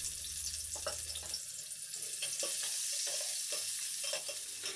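Sliced onions sizzling as they fry in hot oil in a pot, a steady hiss with scattered short clicks.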